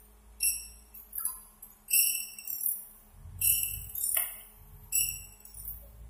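Automatic band saw blade sharpener working along a rejoined blade: short bright metallic pings come roughly twice a second as the grinding wheel meets each tooth, over the steady hum of the machine's motor.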